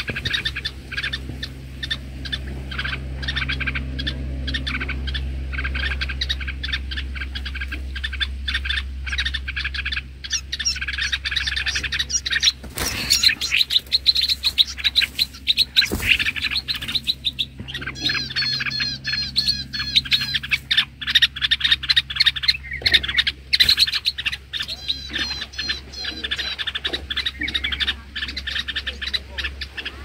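Bulbul giving rapid, repeated chirping calls many times a second, alarm calls at a snake raiding its nest.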